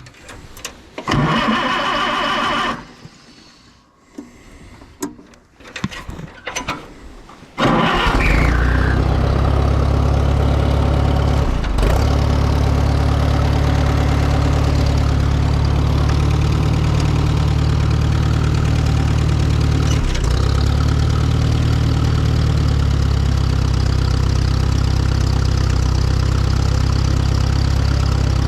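A combustion engine is cranked and catches about eight seconds in, then runs steadily at idle. Before it starts there are a few knocks and clatter.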